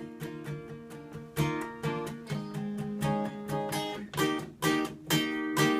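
Acoustic guitar strumming chords in a rhythmic pattern: the instrumental intro of a song.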